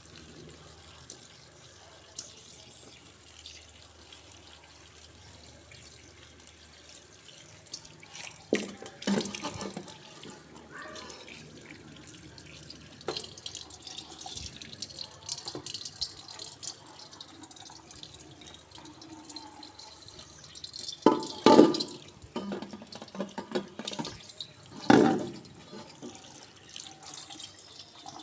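Water running and splashing at a sink, with a few loud knocks or clatters about 9 seconds in, twice around 21 to 22 seconds, and once near 25 seconds.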